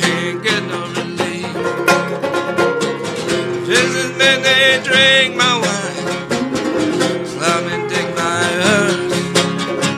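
Banjo and acoustic guitar playing together live, with plucked notes running throughout and a voice singing over them a few seconds in and again near the end.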